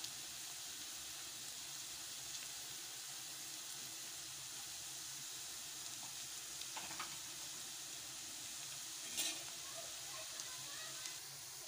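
Chopped onions frying in ghee and oil in a pan, a steady sizzle as they soften and begin to turn golden. A few sharp clicks break through it, the loudest about nine seconds in.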